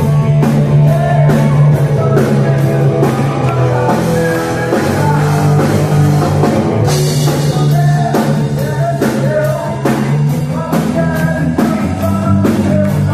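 Rock band playing: drum kit keeping a steady beat under bass and guitar, with a singing voice. A cymbal crash about seven seconds in.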